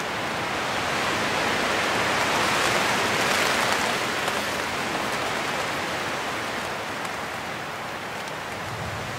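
Steady rain falling on a tent, heard from inside it. It grows heavier around three seconds in, then eases slightly.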